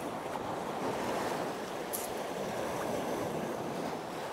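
Sea waves washing against a rocky shore, with wind buffeting the microphone: a steady rushing noise. There is one brief faint tick about halfway through.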